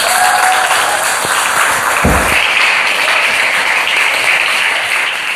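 Audience applauding, with one short low thump about two seconds in; the applause grows fuller just after it.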